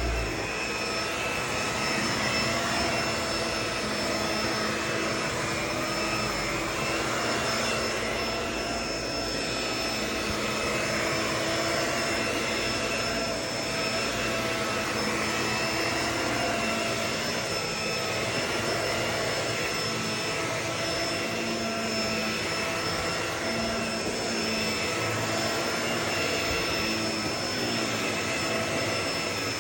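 Vacuum cleaner running steadily, its motor giving a whine whose pitch wavers slightly over a constant rush of air.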